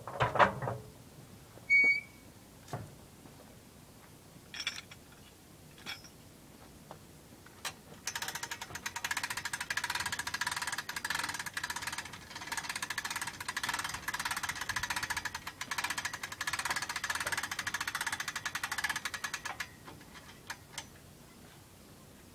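A hand-cranked boat winch ratcheting in a fast, even run of clicks for about twelve seconds as it winds in its line to lift a log hung from log tongs. A few separate metal clinks and knocks come before it, near the start.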